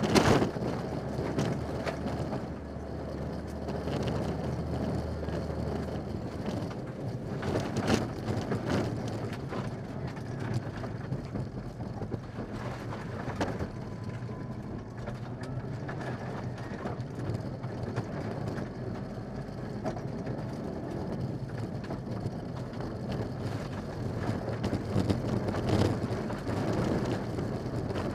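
Mitsubishi Lancer Evolution VI rally car's turbocharged four-cylinder engine running hard, heard from inside the cabin, over the steady rumble and rattle of tyres on a gravel stage. A few sharp knocks cut through, the loudest about 8 seconds and about 26 seconds in.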